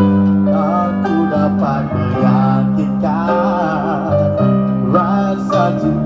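A live acoustic busking band playing a slow ballad: acoustic guitars over a sustained bass line that moves about once a second, with a wavering lead melody above.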